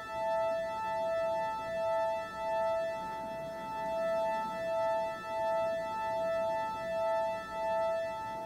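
Electronic two-note tone, pure and steady, alternating evenly between a high and a low note about once a second, like a hi-lo alarm.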